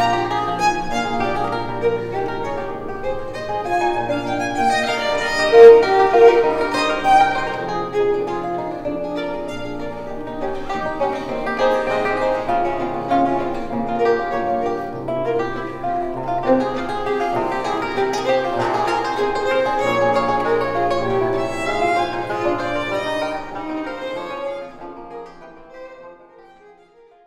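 Baroque violin music with a plucked-string accompaniment over a sustained low bass line, fading out over the last few seconds.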